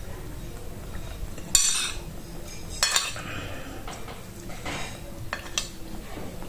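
Metal spoon scraping and clinking against a ceramic plate as it scoops up rice: several short scrapes, the loudest about a second and a half in.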